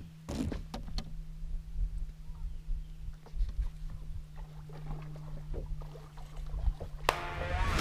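Hook set and fish being fought from a bass boat's casting deck: a sharp snap of the hookset, then scattered low thumps of feet shifting on the deck and small clicks of rod and reel handling over a steady low hum. Music comes in near the end.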